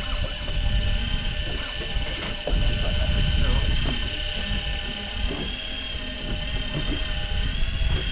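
Electric fishing reel motor winding in line under load: a steady high whine that wavers slightly in pitch, over a low rumble of wind and water.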